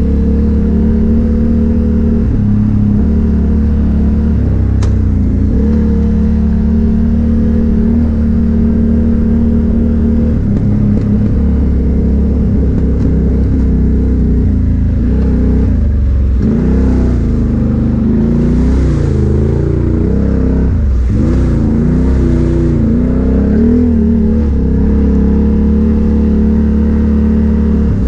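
ATV engine running steadily under way. About halfway through it revs up and down several times, the pitch rising and falling, then settles back to a steady note near the end.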